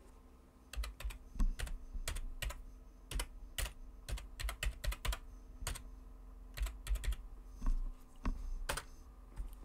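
Typing on a computer keyboard: a run of uneven keystroke clicks that starts about a second in and stops shortly before the end.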